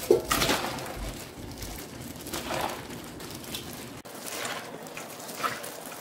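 Plastic-gloved hands tossing napa cabbage in wet chili seasoning paste in a stainless steel bowl: irregular wet squishing and rustling of leaves and gloves, the loudest about at the start.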